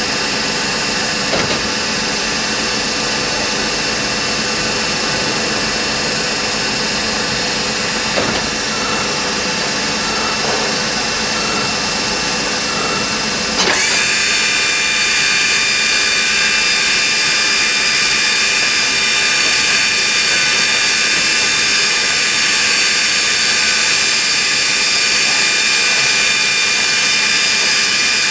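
Nomura DS 10EX3 automatic lathe running while it machines a part: a steady mechanical noise with several high whining tones. Brief clicks come about 1.5 s and 8 s in; about halfway a sharp click marks a change, after which the running sound is slightly louder with a different set of high tones.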